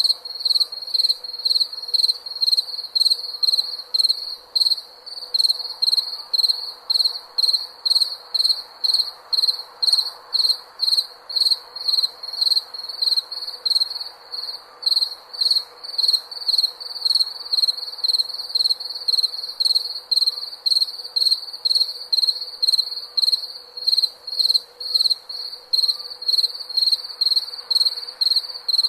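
A cricket chirping in a steady, even rhythm, about two to three high-pitched chirps a second.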